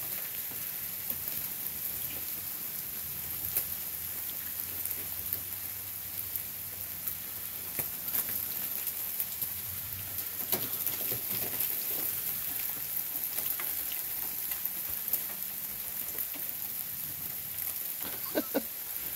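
Freezing rain falling steadily onto ice-coated trees and ground: a continuous hiss with many small scattered ticks and clicks.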